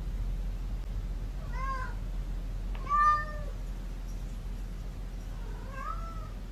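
Domestic cat meowing three times, short calls about a second and a half apart, the middle one loudest.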